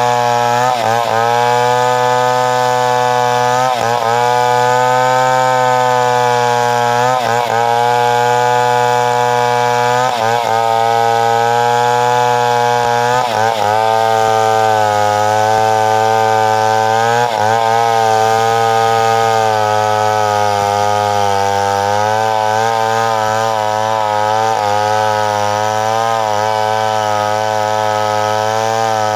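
Chainsaw running under load, cutting wood. Its engine note sags briefly and picks back up about every three seconds at first, then holds steadier in the second half.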